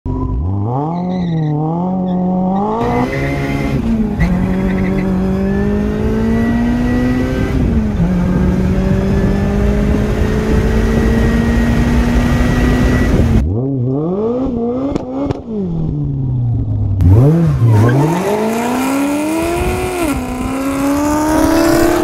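Engine of a modified 400-horsepower Chevrolet Cobalt with a manual gearbox accelerating hard: the engine note climbs steadily and drops sharply at each upshift, twice in the first half. In the second half the engine is revved up and down quickly several times, then pulls up again.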